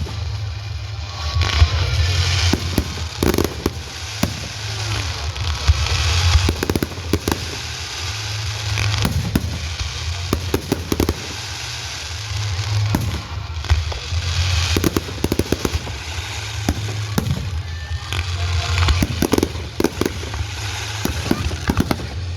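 Fireworks going off: repeated bangs and crackles at irregular intervals, sometimes several a second, over a steady low rumble.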